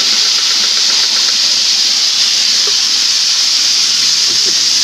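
Wet blended spice paste sizzling in hot oil in a wok, a loud, steady hiss, just after the paste was poured in to sauté.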